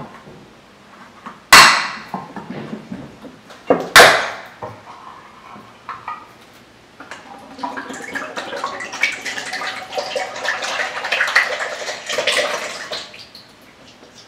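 Kitchen utensils on a bowl or can while condensed milk is added: two sharp knocks about two and a half seconds apart, then several seconds of spoon scraping and clinking.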